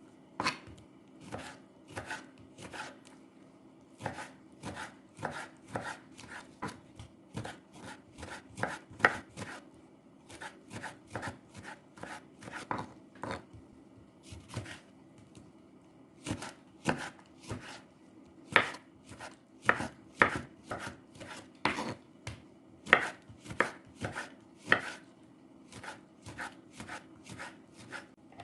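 Knife chopping on a cutting board, irregular strokes about two a second with a few short pauses.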